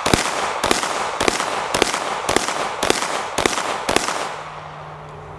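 Red-dot-sighted handgun firing eight shots at an even pace about half a second apart, the last shots of a ten-round string, each shot pressed as soon as the dot settles; the shooting stops about four seconds in.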